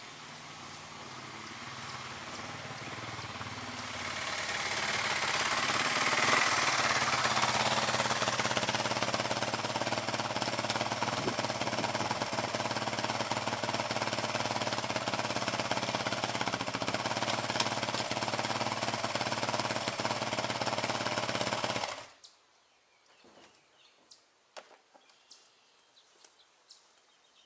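Yamaha YZ450 dirt bike's single-cylinder four-stroke engine growing louder as the bike comes in, then running steadily close by. About five seconds before the end it is switched off and stops abruptly, leaving a few faint clicks.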